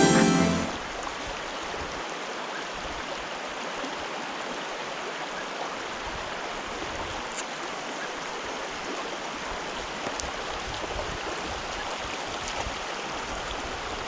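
Mountain stream flowing with a steady rush of water. Music cuts off under a second in.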